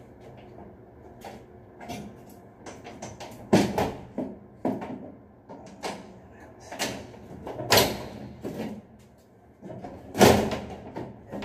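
Metal louvered light reflector panel in an elevator ceiling being shifted back and forth by hand to work it free: irregular metal scrapes, rattles and knocks, with a few sharper knocks, the loudest near the end.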